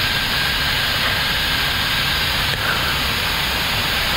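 Steady rushing cabin noise on the flight deck of an Airbus A321neo in flight, with a low rumble underneath and a faint steady high whine.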